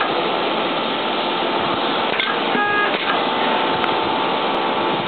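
Hot-knife belt cutting machine running with a steady hiss, cycling about every three seconds: each cycle is a short knock followed by a brief whine as the strip is fed and a piece is cut off.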